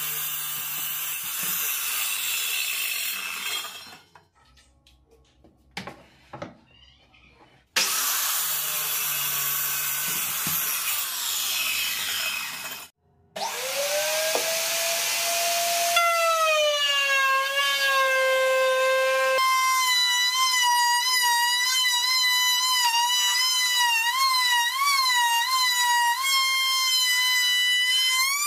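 Electric circular saw running along a guide rail and cutting through wood twice, with a short quiet pause between the two cuts. Then an electric router starts up, its pitch rising, and settles into a steady high whine. The whine dips and wavers as the router bit cuts a groove in the wood.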